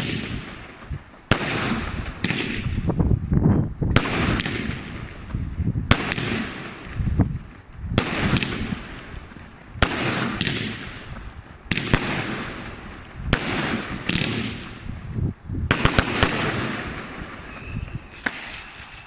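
Fireworks going off in sequence from a homemade finale board: sharp bangs about every one to two seconds, each followed by crackling and hiss, with a quick cluster of bangs about sixteen seconds in.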